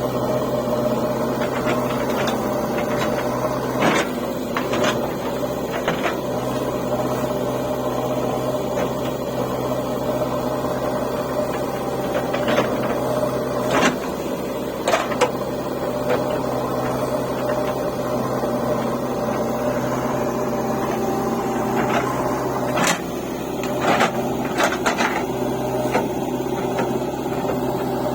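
Diesel engine of a JCB 3DX backhoe loader running steadily, with scattered metallic knocks and clanks from the working machine about ten times, clustered around 4–6 s, 12–15 s and 23–25 s.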